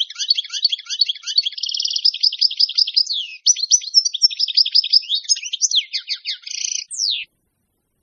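European goldfinch singing: a fast, varied twittering song of quick trills and sweeping notes that stops abruptly about seven seconds in.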